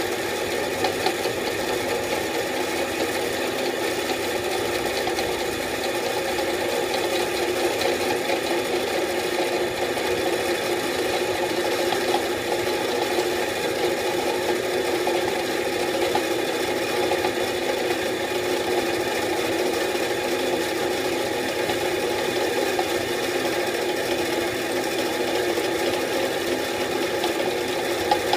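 Delta 14-inch bandsaw running steadily, its motor, pulleys and blade making an even hum. The upper pulley is slipping outward along its shaft as the saw runs.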